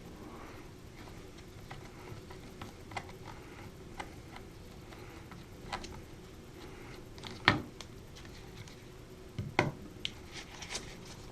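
Scattered light clicks and knocks of handling, the sharpest about seven and a half seconds in and a few more close together near the end, over a faint steady hum.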